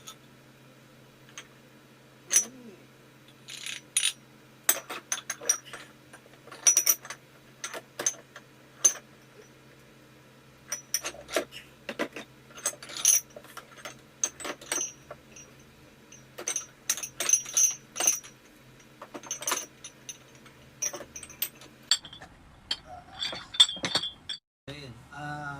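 Chrome-plated metal dumbbell plates and handle clinking and knocking against one another while a dumbbell is put together: many irregular, sharp metallic clinks, some loud.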